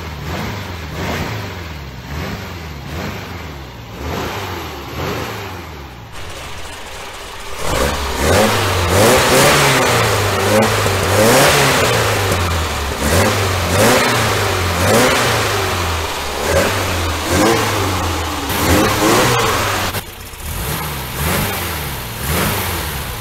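1966 VW Type 3 Fastback's air-cooled flat-four (a 1776 rebuild) revved up and down in repeated throttle blips at the tailpipe. For the first few seconds it runs through the stock exhaust. Through the middle it is louder with the new performance header, J-tubes and muffler, and near the end it is back to the stock exhaust.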